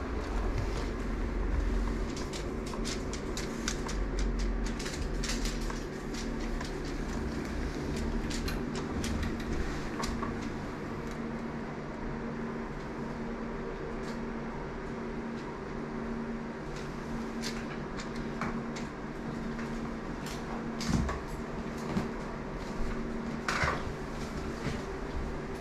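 Indoor room tone: a steady mechanical hum with a deep rumble in the first few seconds, and scattered small clicks and knocks throughout, the loudest near the end.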